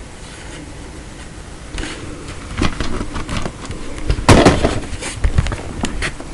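Handling noise on the camera's microphone as it is moved: irregular knocks, bumps and rubbing, starting about two seconds in and loudest a little after four seconds.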